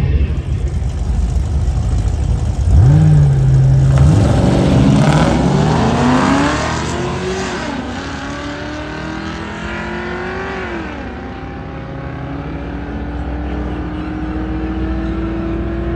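Drag-racing Jeep launching down the quarter-mile strip. The engine revs up and holds for about a second, then pulls hard with a rising note. The pitch drops at two upshifts and climbs again after each, and the sound fades as the Jeep runs away down the track.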